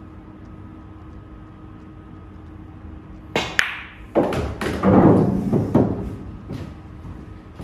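A pool shot on a 9-ball table. About three and a half seconds in comes a sharp click of the cue striking the cue ball, then the cue ball hitting the 2-ball. About a second later there are thuds and rumbling as the ball drops into the corner pocket and the cue ball comes off the cushions, loudest near the five-second mark.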